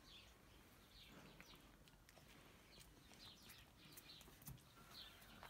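Faint chirping of small birds, short high chirps repeating every half second or so, with a few soft clicks.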